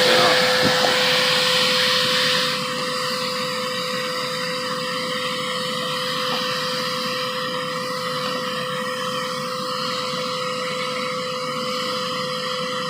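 Bissell Lift-Off vacuum cleaner running, a steady motor whine over rushing air. About two and a half seconds in, the hiss drops and it runs noticeably quieter.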